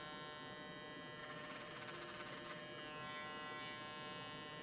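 Electric hair clippers running with a steady buzz, cutting a baseline guide into the hair at the back of the head.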